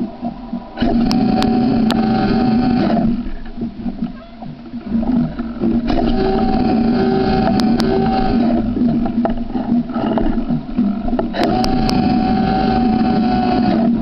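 A remote-control fishing boat's electric motor whining in three bursts of two to three seconds each, each burst opening with a few sharp clicks, over a steady lower hum.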